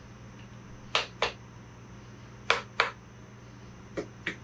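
Sharp metallic clicks from hand tools on engine parts, in three quick pairs about a second and a half apart.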